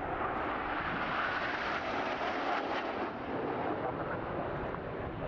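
Formation of BAE Hawk T1 jet trainers flying past together, a steady rushing jet noise that is a little louder about one to three seconds in.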